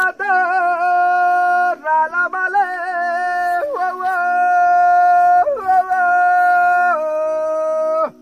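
A single voice chanting an andahera, the traditional Sinhala farmers' call used on the threshing floor to drive the buffaloes: long drawn-out notes that waver in pitch, several held for a second or more. It stops abruptly near the end.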